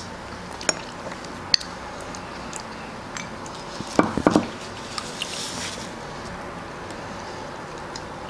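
Sweet cherries being eaten at a table: soft mouth sounds and scattered small clicks of cherries and pits against the serving dish, with a brief louder sound about four seconds in.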